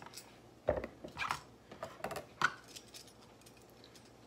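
A tomato peeler scraping the skin off a firm green tomato in a few short rasps, after a dull thump a little under a second in.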